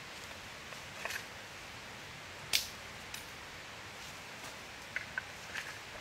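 A steady hiss with a handful of short, sharp clicks and knocks; the loudest knock comes about two and a half seconds in, and several smaller clicks come near the end.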